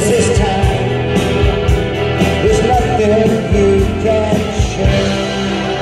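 Live rock band playing: electric guitars and drums, with a singer's voice carrying the melody.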